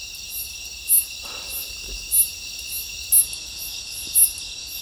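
Night insect chorus, crickets trilling steadily, with a louder high-pitched chirp repeating about once a second.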